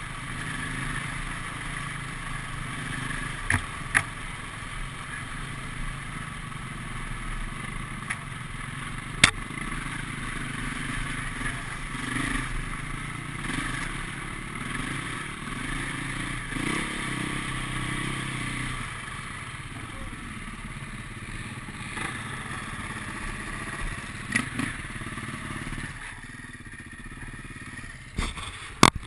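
Off-road dirt bike engine running along a muddy trail, the revs rising and falling with the throttle, with several sharp knocks over the ride. Near the end the engine drops to a quieter idle as the bike pulls up.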